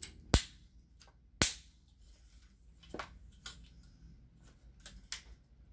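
Onn 67-inch tripod being handled: two sharp plastic clicks in the first second and a half, then a few lighter clicks and knocks as its legs and fittings are worked.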